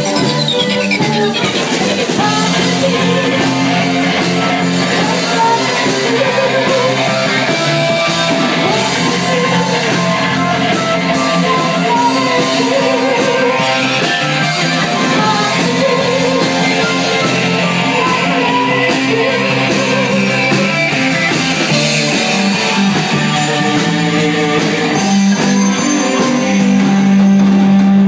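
A live rock band playing loudly, with drums, keyboards and guitar, and a singer's voice over the top.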